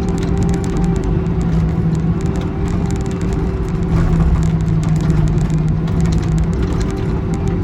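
Excavator's diesel engine running steadily under load while it digs, with scattered light clanks and clicks throughout.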